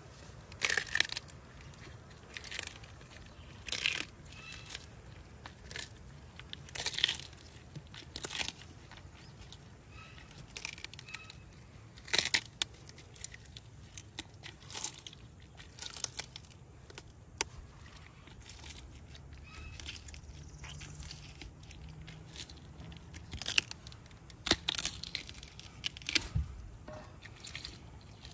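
A large tortoise biting and chewing a prickly pear cactus pad, with irregular crunching, tearing bites a second or two apart.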